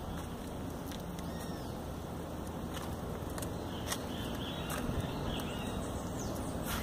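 Outdoor ambience: a steady low rumble of distant city traffic, with a few faint bird chirps and scattered sharp clicks.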